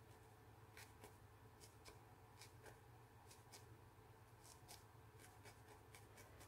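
Faint, irregular crisp ticks, about two a second, of a barbed felting needle jabbing loose wool into a felted wool body to secure it.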